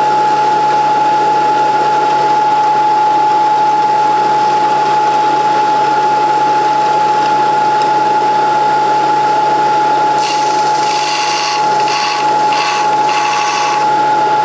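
Slow-running belt sander with a steady whine; about ten seconds in, a snapped drill bit held in a clamp is pressed against the moving belt, adding a rough grinding for a few seconds in short strokes as a new point is ground on it.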